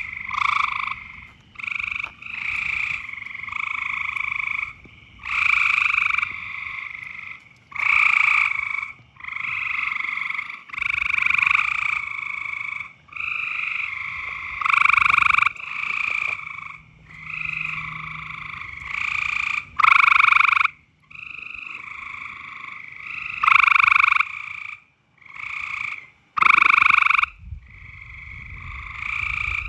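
Frogs giving loud breeding calls, one call after another roughly every second and a half, some calls much louder than others.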